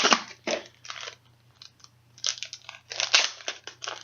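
Rustling and crunching of baseball cards and their packaging being handled, in several short irregular bursts.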